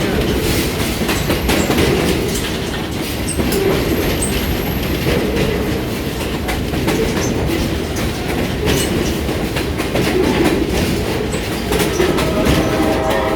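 Passenger train riding along the track, heard from on board: a steady rumble with the wheels clicking over the rail joints. A steady pitched tone comes in near the end.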